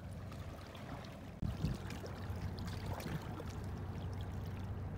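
River water lapping and splashing against the stony bank, over a steady low rumble that gets louder about a second and a half in.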